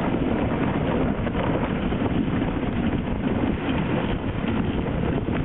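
Dog sled moving at speed over a packed snow trail: a continuous rough scraping of the runners on snow with small irregular bumps, mixed with wind buffeting the microphone.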